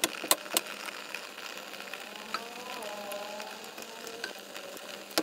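Wild strawberry jam simmering in a pot with a steady sizzling hiss and scattered pops, while a wooden masher crushes the berries. The masher knocks sharply against the pot a few times at the start and again at the end.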